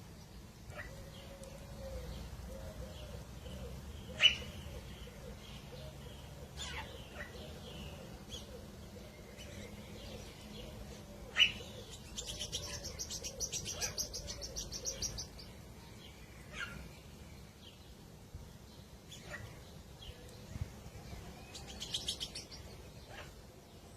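Birds calling: sharp single chirps at intervals, the two loudest about four and eleven seconds in. Bursts of rapid high trilling come around twelve to fifteen seconds in and again near the end, over a faint low wavering call.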